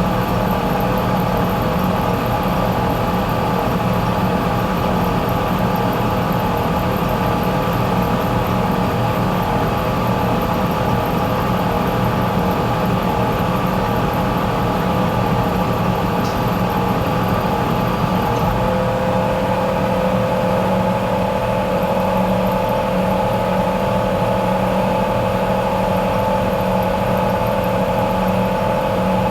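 A motor running steadily, a continuous whirring hum made of several steady tones. About 18 seconds in, a further steady tone joins the hum.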